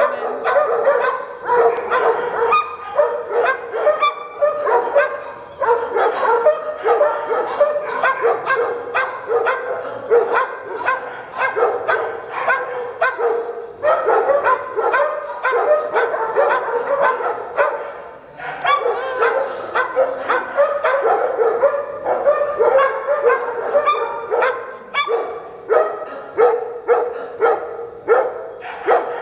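Several dogs barking over one another in rough play, almost without pause, with a short lull about two-thirds of the way through.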